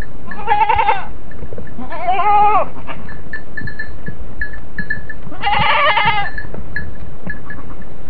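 Goats bleating, three wavering calls each under a second long.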